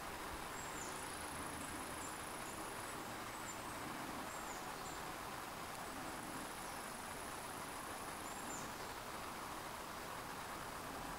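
Autumn insects, cricket-like, trilling high and thin in long stretches that stop and start again, with a few short, high, falling chirps scattered through, over a steady hiss.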